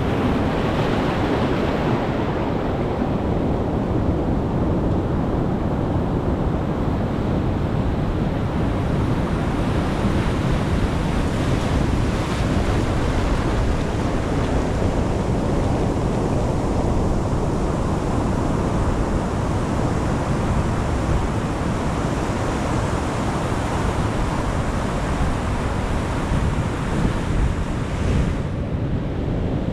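Ocean surf: a continuous rush of waves breaking and washing in, swelling and easing slowly every several seconds.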